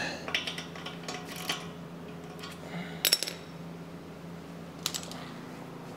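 Sharp metallic clinks of a wrench and caster-wheel hardware being handled on a concrete floor: a few separate clinks, the loudest pair about three seconds in.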